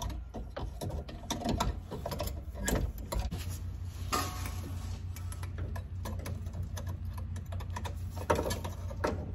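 Hand tools clicking and knocking against metal under the car as a new hydraulic suspension accumulator is bolted in, with a long-handled wrench on the mounting bolts. Many short irregular clicks over a steady low hum.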